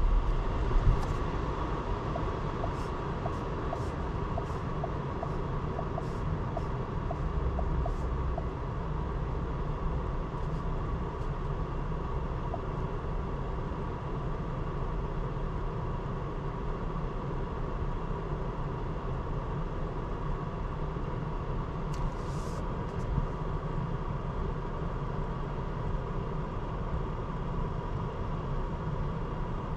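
2024 Porsche Cayenne on the move: steady road and tyre noise with a low engine hum. A run of light, regular ticks comes in the first several seconds, and a short hiss about two-thirds of the way through.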